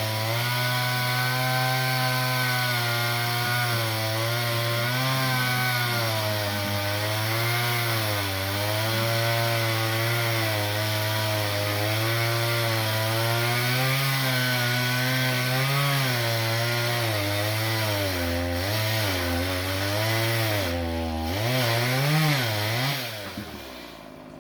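Chainsaw cutting through a dried coconut palm trunk, its engine pitch wavering up and down as the chain works in the wood. Near the end the engine note dips and swings sharply a few times, then drops away.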